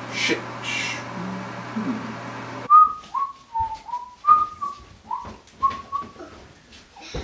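A steady hiss with a low hum, which cuts off suddenly after a couple of seconds. Then a man whistles a short tune of about ten quick notes, and a single knock comes near the end.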